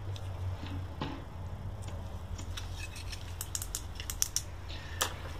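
Handling of a small Eurorack module and screwdriver: a quick run of light clicks and ticks starting about halfway in, then one sharper click near the end, over a steady low hum.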